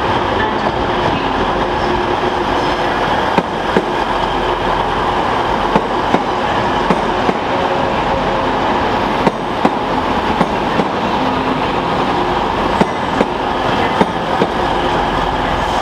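A TransPennine Express Class 185 diesel multiple unit running past close by: a steady engine and rolling noise, broken by irregular sharp clicks as its wheels cross rail joints.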